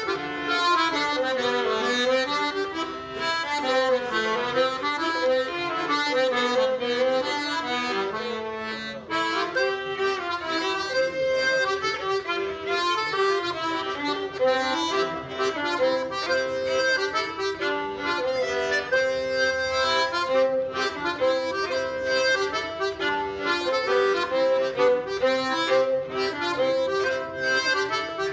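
Accordion playing a traditional dance tune, a continuous melody with a brief dip in loudness about nine seconds in.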